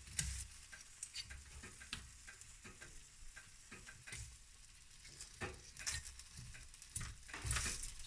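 Marinated pork sizzling faintly on a hot grill while the pieces are turned over: scattered clicks, knocks and scrapes of the utensil against the grill over the sizzle.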